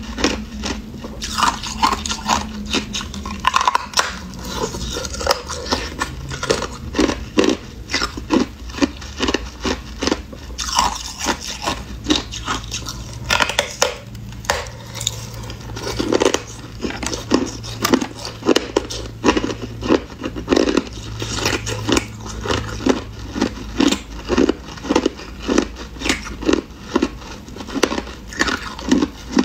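Hard clear ice being bitten and chewed: a continual run of sharp cracks and crunches, about two or three a second.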